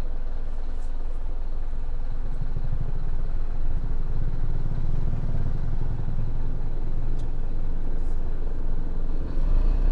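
Isuzu NPS300 truck's turbo-diesel engine running steadily, a continuous low rumble that swells louder near the end.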